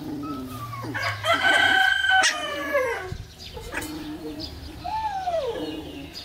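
A rooster crowing once: a long, held call that drops in pitch at the end. A shorter call rises and falls about five seconds in.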